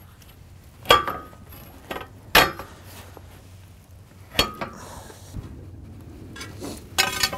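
Steel gas pipe and its threaded couplers knocking against the steel bed frame: four sharp metallic clinks that ring briefly, the last a quick rattling cluster near the end.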